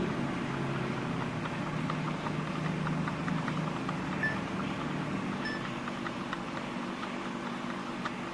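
Steady machine hum with faint, rapid ticking over it.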